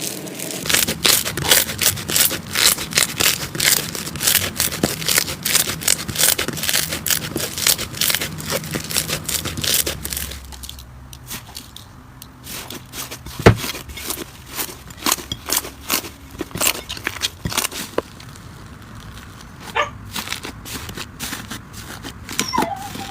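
Slime being squeezed and worked by hand, giving a dense run of small crackles and pops for the first ten seconds, then sparser pops with one sharp loud pop about halfway through.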